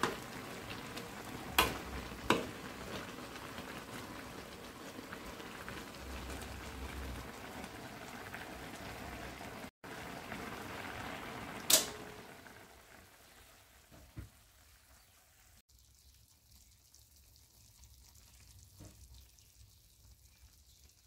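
Pot of tom yum soup simmering, a steady bubbling hiss, with two sharp knocks about two seconds in and a louder one about twelve seconds in. The bubbling dies away to a faint background after that last knock.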